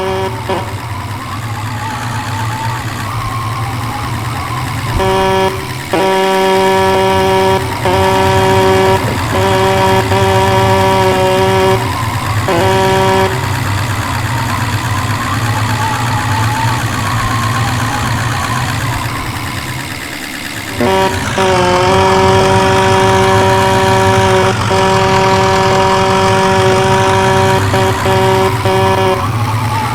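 A loud horn sounding a steady note: several blasts with short breaks, then about eight seconds later one long blast, over the steady hum of an engine.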